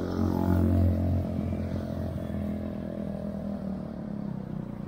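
Yamaha R15 V3 motorcycle engine running on the move, louder for the first second or so and then steady.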